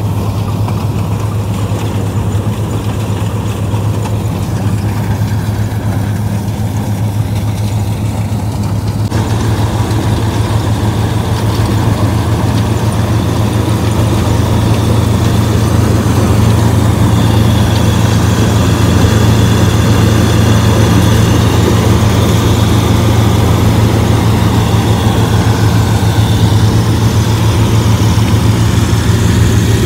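Someca combine harvester running under load, its engine humming steadily while the belt-driven header and threshing drum work through dried sunflower heads. The machine noise gets louder and fuller about nine seconds in and again around fifteen seconds.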